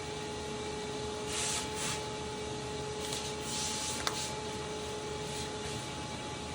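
Motor oil being poured from a quart bottle through a funnel into the engine, heard as short rushing gushes about a second in and again about three seconds in, with a sharp click just after four seconds, over a steady hum.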